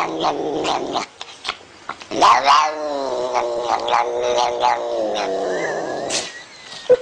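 A cat yowling in long, drawn-out calls. One ends about a second in, and a longer one from about two seconds in rises and then falls in pitch. A brief sharp thump comes right at the end.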